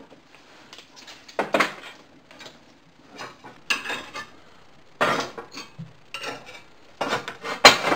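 Cast iron wood stove lids clanking as they are lifted and set back over the cooktop holes with a metal lid lifter: a handful of separate metal knocks, the loudest near the end.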